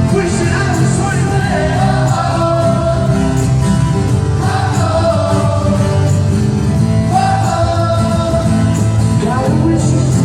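Pop-rock band playing live, with sung vocals over steady guitar, bass and drums.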